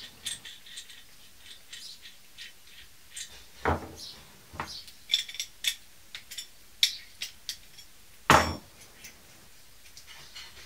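Light metallic clicks and clinks of a brake pipe flaring tool and hand tools being handled, with a few louder knocks about four and eight seconds in, the loudest near eight seconds.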